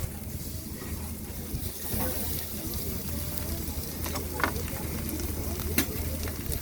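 Food sizzling on a hot grill at a street-food stall, a steady crackling hiss with a few sharp clicks, over faint crowd chatter.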